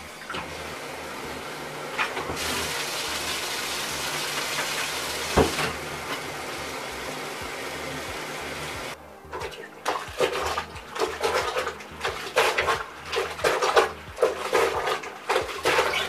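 Bathtub faucet running water into a plastic bucket, louder for a few seconds after about two seconds in, then shut off about nine seconds in. After that comes uneven splashing and sloshing of water in the bucket as the laundry is mixed in it to get everything wet.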